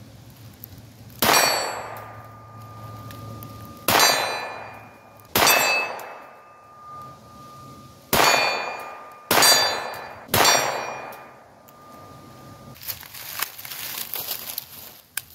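Sig Sauer P322 .22 rimfire pistol fired six times at an uneven pace, with the 8-inch steel plate ringing after the hits.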